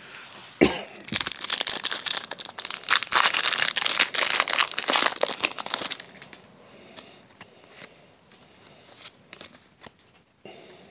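Foil wrapper of a Pokémon trading-card booster pack crinkling and being torn open, a dense crackle lasting about five seconds. After that come fainter rustles and ticks as the cards are handled.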